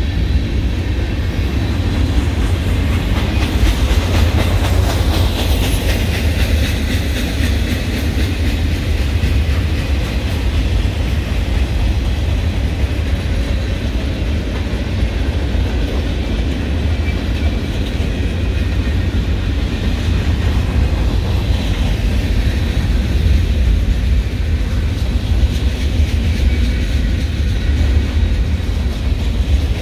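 Cars of a mixed manifest freight train rolling past: steel wheels clacking over the rail joints over a steady low rumble.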